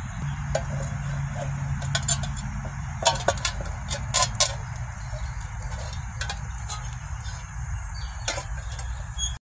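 Hot water poured from a stainless steel pan into a glass mug, with a few sharp clinks about three to four seconds in, over a steady low outdoor rumble.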